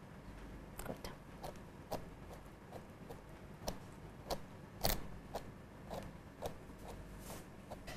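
Grooming brush strokes through a Shih Tzu's long coat: faint, short scratching strokes at an irregular pace, about one or two a second, with one louder stroke about halfway.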